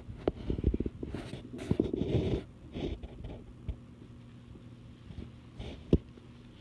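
A pet scuffling with a small fabric pillow on a wooden floor: rustling, sliding and soft knocks through the first couple of seconds, then quieter, with one sharp knock near the end. A faint steady hum sits underneath.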